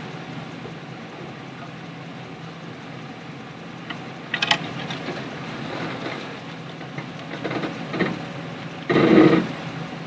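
Pickup truck engine idling steadily, with a few knocks and scrapes of a wooden plank being set against a tyre as a ramp; the loudest clatter comes near the end.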